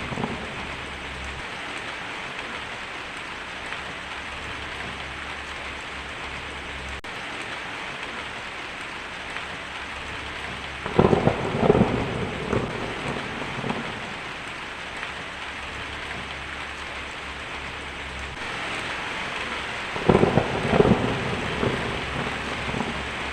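Heavy rain falling steadily on a tin roof, an even hiss, with thunder rumbling twice, about eleven and twenty seconds in.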